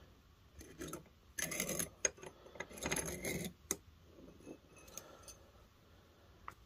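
Hand-cranked piston ring file grinding the end of a two-stroke piston ring in a few short rasping strokes, the main ones in the first three and a half seconds, followed by a few light metallic clicks. This is filing the ring's end gap wider because it measured too tight.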